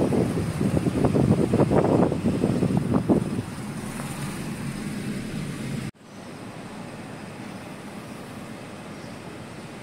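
A car driving along, with wind buffeting the microphone. The rough rumble eases after about three seconds. Just before six seconds in it cuts off abruptly, and a steadier, quieter hiss follows.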